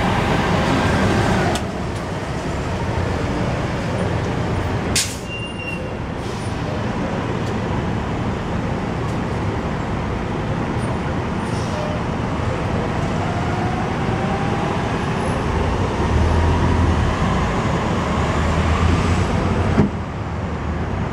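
2009 Orion VII NG CNG transit bus's natural-gas engine pulling away from the curb and fading as the bus drives off down the street, with a sharp click about five seconds in. A low rumble of other road traffic rises near the end.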